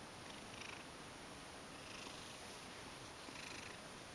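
Ragdoll cat purring while being stroked, a contented purr, faint and steady, swelling gently about every second and a half.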